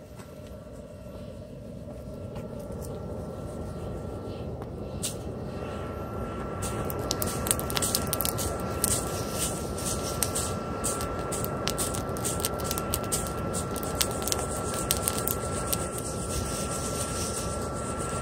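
Wood fire burning under roasting chestnuts: a steady rushing roar that builds over the first several seconds, with sharp crackling and popping from about five seconds in.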